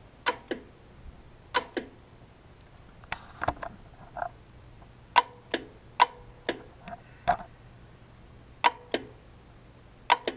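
A/C compressor clutch clacking in and out as its coil is switched on and off through a jumpered A/C relay socket. About a dozen sharp metallic clicks come at uneven intervals, several in quick pairs, each with a short ring.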